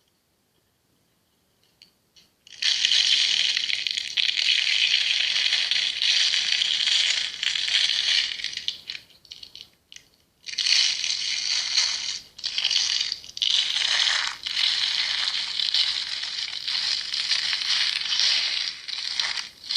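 Knife carving into a firm green fruit: continuous crisp scraping and crunching that starts about two and a half seconds in, breaks off for a moment around the ninth second, then carries on.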